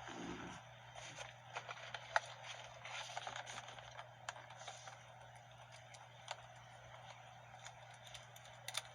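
Light, scattered clicks and scrapes of hands working small plastic connectors and parts at a car's steering column, busier in the first few seconds and sparser after.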